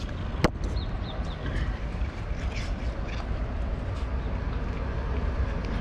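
Cat crunching dry kibble, a scatter of short crisp clicks, over a steady low rumble of street traffic, with one sharper click about half a second in.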